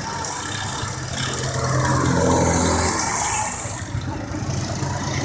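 Racing go-kart engines running as karts drive past on the circuit, one rising in pitch as it accelerates about two seconds in.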